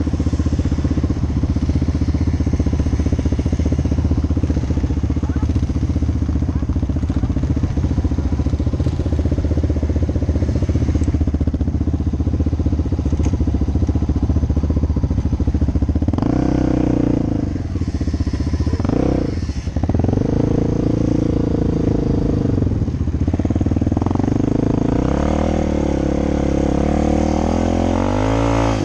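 Quad (ATV) engine idling steadily, then revved up and down a couple of times about halfway through, and pulling with rising pitch under acceleration near the end.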